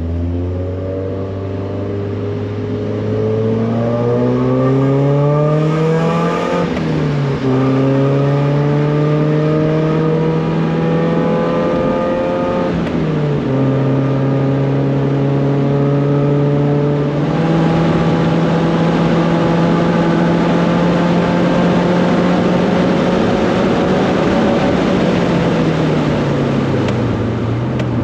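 1999 Mazda Miata's four-cylinder engine pulling hard on track, rising in pitch through each gear with two upshifts about 7 and 13 seconds in. It then holds fairly steady before easing off and dropping in pitch near the end.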